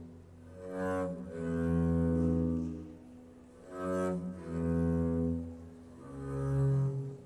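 Double bass bowed in long notes that each swell and fade, about five of them with short gaps between, the last note lower.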